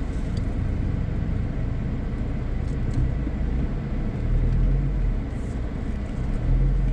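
Steady low rumble of a car driving slowly, engine and road noise, swelling deeper and louder about four seconds in and again near the end.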